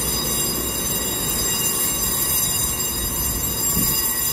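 TRA EMU3000 electric multiple unit standing at the platform, its onboard electrical equipment giving a steady high whine of several fixed tones over a low hum.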